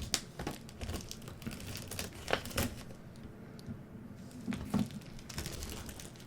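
Plastic wrapping on a boxed Pokémon card set crinkling and tearing as it is cut and pulled open, with scattered sharp crackles, the loudest about two and a half seconds in and again near five seconds.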